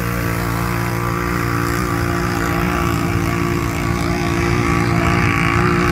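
ATV engine at full throttle on a mud drag run: a loud, steady drone that holds an almost constant pitch, with a hiss over it.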